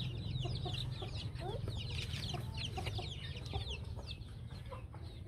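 A flock of young chicks peeping: many short, high, falling cheeps overlapping all through, over a steady low hum.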